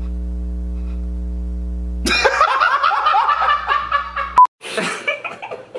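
A steady low buzzing tone for about two seconds, then a man breaks into loud, high-pitched laughter. The laughter is cut by a short beep, and more laughing and talking follow.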